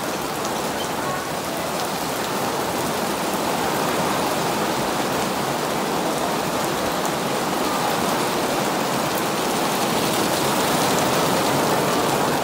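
Rain falling steadily on a wet tiled terrace, a dense even hiss that grows slightly louder toward the end.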